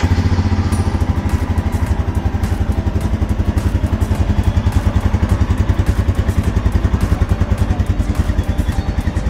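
2021 Royal Enfield Himalayan BS6's 411 cc single-cylinder four-stroke engine idling, with a steady, fast, even pulse.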